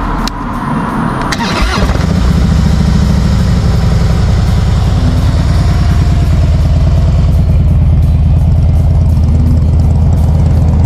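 2014 Harley-Davidson Breakout's air-cooled Twin Cam 103 V-twin cranked and started about a second and a half in, then idling steadily and loud.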